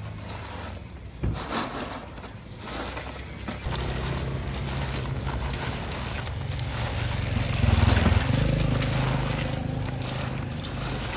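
A motor running with a steady low hum that shifts in pitch, with a sharp knock about a second in.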